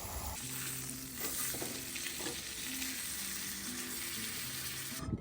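Steak sizzling as it fries in a pan, a steady crackling hiss.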